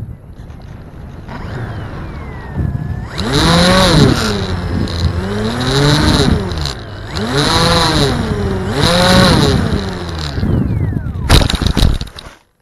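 Wind rushing over an onboard microphone as a foam RC model plane glides, then its motor and propeller run in three surges, the whine climbing and falling in pitch with each burst of throttle. Near the end, a few hard knocks and scrapes as the plane touches down on grass.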